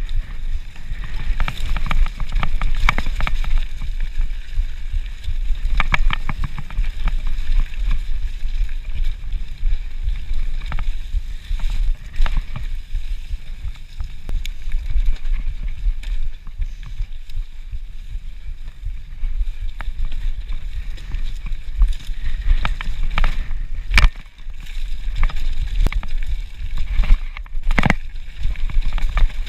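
Mountain bike riding fast down a leaf-covered dirt trail: wind rumbling on the microphone over the hiss of tyres on leaves and dirt, with scattered clicks and rattles from the bike over bumps.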